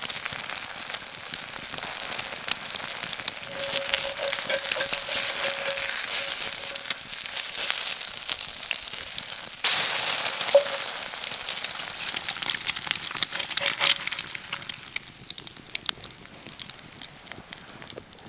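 Eggs frying in fat in a cast-iron skillet, a steady crackling sizzle full of small pops. The sizzle jumps louder about ten seconds in and dies down over the last few seconds.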